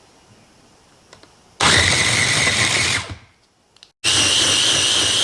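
Food processor motor running in two short pulses, blending sliced tomatoes with salt and pepper into a thick liquid sauce: a steady whine of about a second and a half, a brief stop, then a second run, slightly higher-pitched, from about four seconds in.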